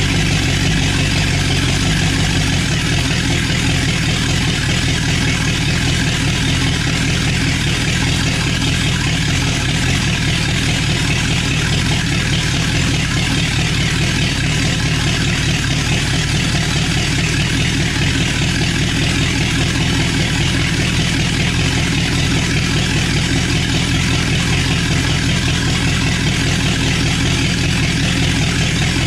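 1960 Chevrolet 283 small-block V8 with a two-barrel carburetor idling steadily and loudly, exhausting through bare factory cast-iron exhaust manifolds fitted without gaskets. Its note shifts slightly about two and a half seconds in.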